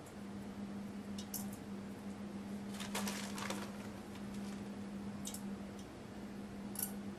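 Barely thawed raspberries being handled and set into a clear trifle bowl: a few soft, squishy touches and light clicks, the busiest about three seconds in, over a steady low hum.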